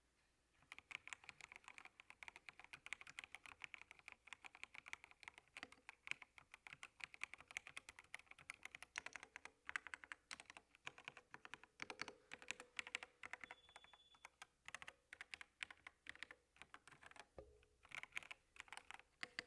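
Steady typing on a computer keyboard: quiet, rapid key clicks in quick runs with short pauses, starting about a second in.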